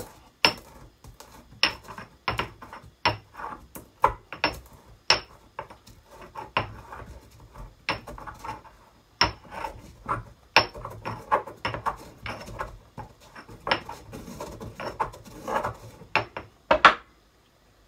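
Pestle crushing pimento (allspice) berries in a mortar: irregular sharp knocks, about one or two a second, that stop just before the end.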